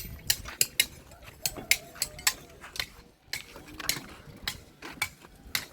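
Irregular sharp metallic clicks and knocks, two or three a second, from construction workers handling and fixing steel on a building site, with faint voices.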